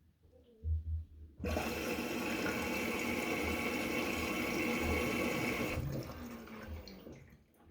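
Water rushing into an LG washing machine. It starts suddenly about a second and a half in, runs steadily for about four seconds, then cuts back and trails off. A couple of low thumps come just before it.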